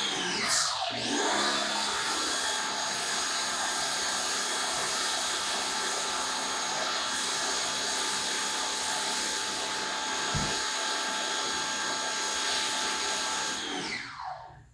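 Pressure washer running with a Chemical Guys Big Mouth foam cannon fitted, spraying foam onto a truck's body: a steady motor whine over a hissing spray. It winds down near the end as the trigger is let go.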